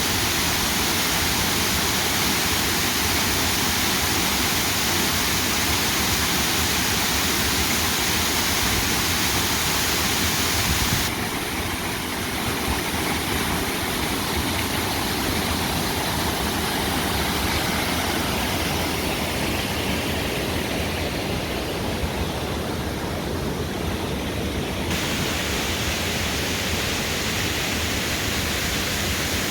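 Waterfall: a steady, even rush of falling water. Its tone changes abruptly about eleven seconds in, thinner in the highs, and changes back around twenty-five seconds in.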